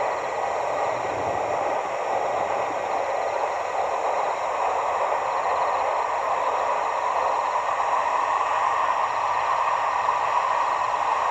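Passenger train running past, a steady rolling noise of wheels on rails that grows slightly louder toward the end.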